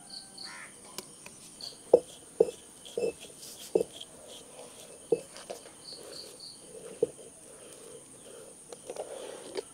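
Wet slaps and knocks of a hand scraping freshly ground urad dal batter off a traditional stone grinder's pestle and mortar, about a dozen irregular strikes with the loudest about two seconds in. Crickets chirp steadily in the background.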